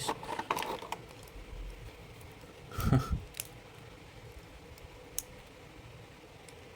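Small clicks and handling noises of a plastic action figure's parts being fitted by hand, with a louder bump about three seconds in and one sharp click a couple of seconds later.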